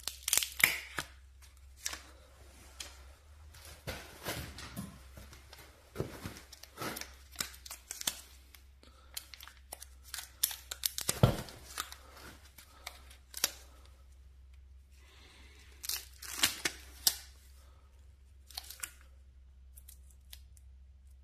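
Sticky rubber tire-plug strips being peeled apart from their paper backing: irregular bursts of paper tearing and crinkling with a few sharp clicks of needle-nose pliers, over a faint low hum.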